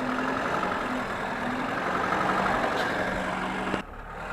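Lada Niva's engine running steadily while the car sits stuck in mud on a log, with a steady drone; the sound drops off abruptly near the end.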